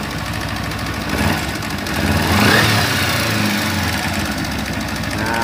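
Kawasaki Ninja 250 FI engine idling just after start-up with a rapid metallic "cek-cek-cek" rattle, a little louder for a moment about two seconds in. The mechanic traces the rattle to a failing cam chain tensioner (tensioner keteng).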